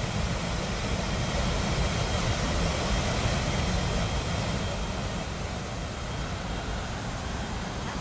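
Steady rushing roar of a waterfall and the river water below it, with a heavy low rumble underneath, swelling a little in the first few seconds and easing later.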